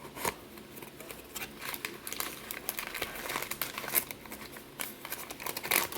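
Packaging crinkling and rustling as it is handled, a busy run of irregular crackles, with the sharpest one just before the end.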